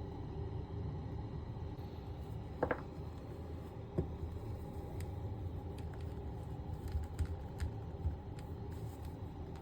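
A few small plastic clicks and taps from handling a 1/6-scale action figure and fitting its swappable hands, over a steady low hum.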